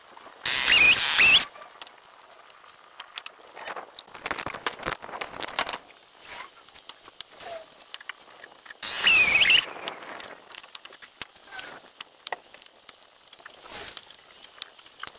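Firewood-stacking work sounds sped up about twenty times: a rapid patter of clicks and knocks from split logs being handled and set in place. Two brief, loud bursts with a high, wavering pitch come about half a second in and again about nine seconds in.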